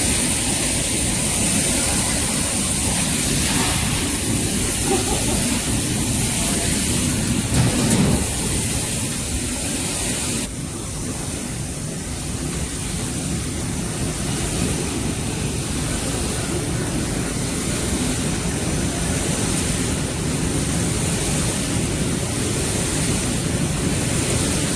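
Rice crispy ball production line running with a steady machine noise and a thin high whine, while a stream of puffed rice balls pours with a rushing patter into a plastic bin. The hiss drops a little about ten seconds in.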